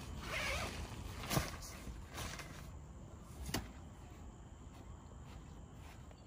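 Tent fabric being handled while the inner tent is closed: a short rasping rustle, then two sharp knocks about two seconds apart, with a lighter rustle between them.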